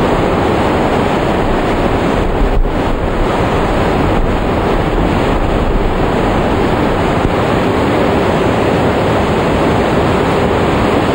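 Steady, loud rush of the Plitvice Lakes waterfalls pouring into the pools below.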